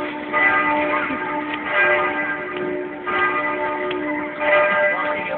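Church bells ringing, a fresh stroke about every second and a half, the ringing tones hanging on and overlapping.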